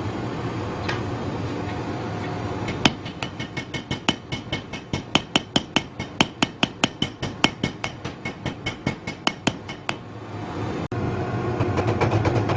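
Rapid, even hammer blows on hot Damascus billet steel against an anvil, about five a second, each with a bright metallic ring. They start about three seconds in and stop near ten seconds, over a steady rushing noise that continues throughout.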